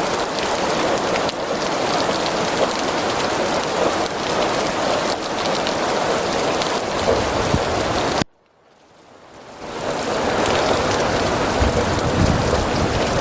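Rain falling steadily at night. About eight seconds in the sound cuts out abruptly to near silence, then fades back in over a second or two. A low rumble of thunder comes in over the last few seconds.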